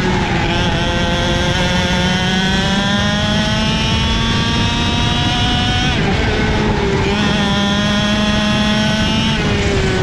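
Two-stroke racing kart engine under power, heard from the kart itself. The revs climb steadily for about six seconds, drop sharply, climb again, and drop once more near the end.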